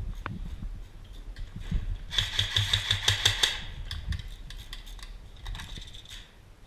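Airsoft electric gun firing a burst of rapid, evenly spaced shots, about a second and a half long, starting about two seconds in.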